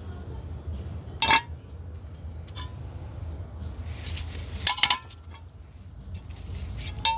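Metal drum brake parts and hand tools clinking as they are handled, a few sharp clinks with short ringing: about a second in, twice around the middle, and near the end, over a steady low hum.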